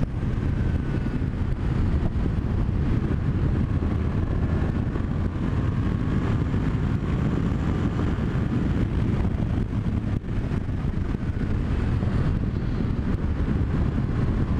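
Yamaha MT-07 Tracer's 689 cc parallel-twin engine running under way at road speed, mixed with heavy wind rush on the helmet-mounted microphone. The engine note drifts a little as the revs change.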